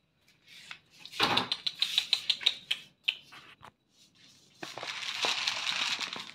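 Objects being handled: a quick run of clicks and rattles about a second in, then a few stray clicks, and a steady rustle over the last couple of seconds.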